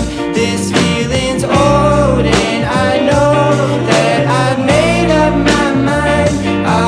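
Background music: a song with a sung melody over guitar, bass and a steady drum beat.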